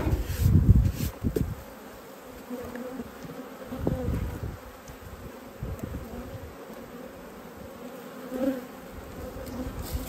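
Honeybees buzzing in a steady hum around an open Langstroth hive, with a few low thumps, the loudest in the first second and another about four seconds in.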